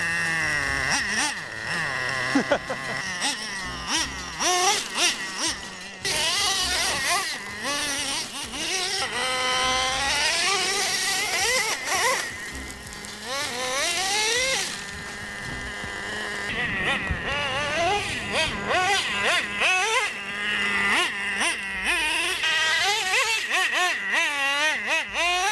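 Traxxas Slayer's TRX 3.3 nitro engine revving up and easing off again and again, its high whine rising and falling as the truck is driven hard.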